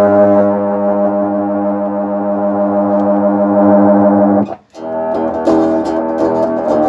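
Bass guitar played through an Electro-Harmonix Bass MicroSynth pedal: one long held synth note with a rich, brassy tone, cut off about four and a half seconds in, followed by further shorter notes. The pedal is producing sound again after its shorted SMD ICs were replaced.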